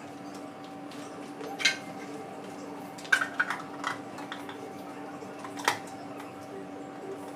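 Several sharp clinks and taps of small hard objects being handled: one about one and a half seconds in, a quick cluster around three to four seconds, and another near six seconds. A steady hum runs underneath.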